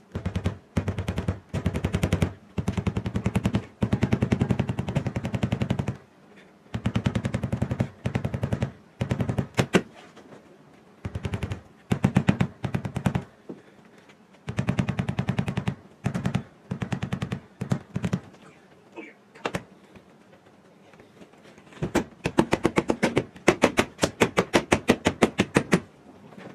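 Installation rope being pulled out of the channel of a rubber rear-window gasket, chattering against the rubber in bursts of rapid rattling clicks. It is rolling the gasket lip over the body's pinch weld to seat a 1968 Ford Mustang's rear glass.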